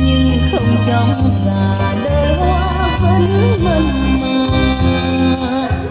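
A song with a singer and heavy bass, played from CD through a Kenwood A45 mini hi-fi system's three-way speakers, which have 20 cm woofers.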